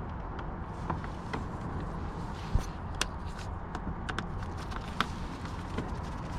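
Scattered light clicks and taps of hand work on a car door, with one louder knock about two and a half seconds in, over a steady low background hum.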